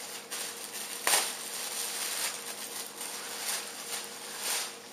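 Thin plastic packaging bag crinkling and rustling as a t-shirt is pulled out of it, with a sharper crackle about a second in.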